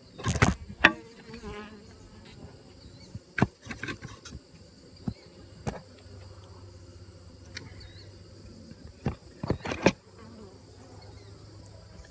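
Honeybees buzzing around an open top-bar hive, with a steady insect hum throughout. Sharp knocks and clicks from the hive's wooden top bars being handled come a few times: a cluster at the start, single ones in the middle, and a cluster near the end.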